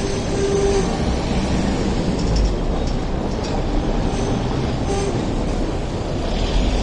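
Hong Kong double-deck electric tram rolling along street track, a steady rumble, with road traffic passing close by.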